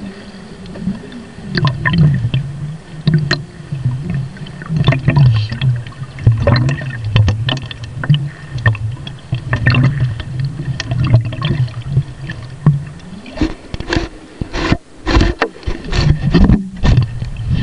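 Muffled underwater sound picked up by a camera sealed inside a plastic Tupperware container: water sloshing and gurgling over a low wavering drone, with sharp knocks and taps against the container, thickest in the last few seconds.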